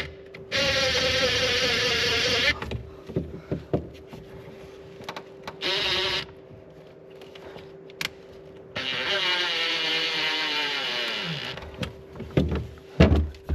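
Cordless drill running in short bursts: a run of about two seconds near the start, a brief one about six seconds in, and a longer run about nine seconds in whose pitch winds down as it stops. A few knocks and handling clatter follow near the end.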